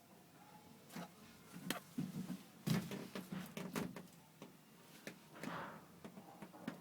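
A scatter of light knocks and clicks, several within a few seconds, with a brief swish near the end.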